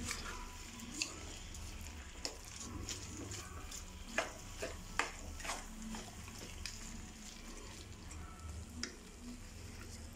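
A spoon stirring a thick kootu curry of vegetables, chickpeas and coconut in a nonstick pan, with irregular clicks and scrapes where the spoon knocks the pan. Under it are a faint sizzle and a low steady hum.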